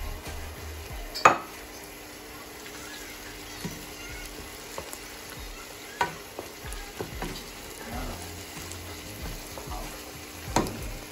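Browned onions and whole garam masala spices sizzling gently in oil in a non-stick frying pan as they are stirred with a plastic spoon. A few sharp knocks of the spoon against the pan, the loudest about a second in.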